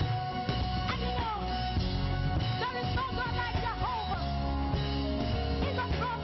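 Live praise-and-worship band music with a steady bass and held chords, and a melody line of bending, gliding notes in the middle.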